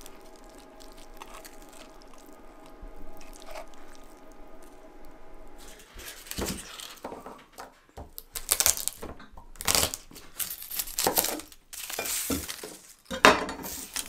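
After a few quiet seconds, a chef's knife knocks and scrapes on a wooden cutting board while garlic cloves are crushed and their papery skins crackle and tear as they are peeled off.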